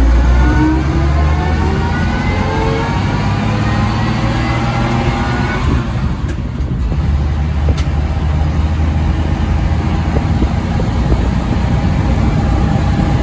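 The inline-six engine of a 1940 Chevrolet 1½-ton truck, heard from inside the cab while it drives. The engine note climbs in pitch as it pulls for about five seconds, dips briefly about six seconds in, then runs on steadily.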